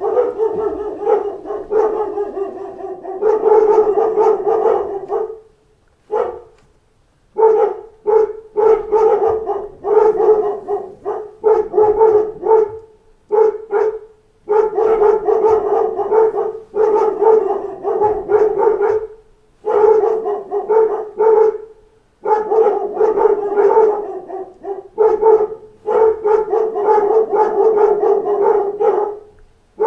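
A pack of dogs barking in fast, overlapping runs, broken by a few short pauses; the longest, about a second and a half, comes some six seconds in.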